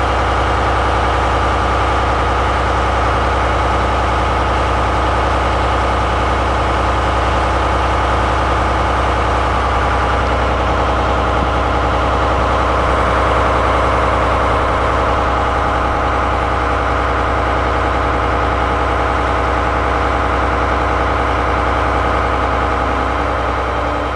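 Shiki-shima cruise train's diesel engine-generator running steadily at idle while the train stands at the platform.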